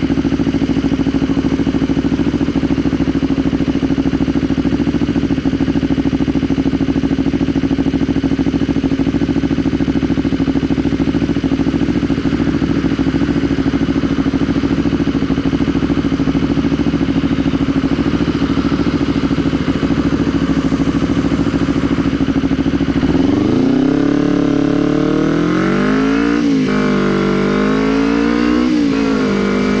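Kawasaki Ninja 250R's parallel-twin engine idling steadily while stopped, then revving up as the bike pulls away about 23 seconds in. The pitch climbs, dips briefly twice as it shifts up, and climbs again.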